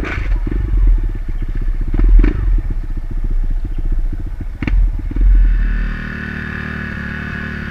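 Kawasaki KLX150 dirt bike's single-cylinder four-stroke engine running under throttle, with a few sharp knocks from the bike over rough ground. About six seconds in the engine sound gives way to a steady hum.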